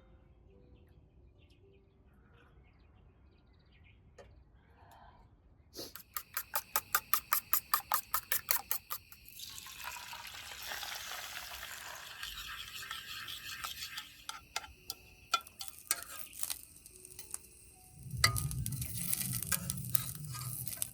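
Camp cooking and handling sounds: a fast, even run of clicks about six seconds in, then a few seconds of steady hiss, then scattered clatter and a low rumble near the end.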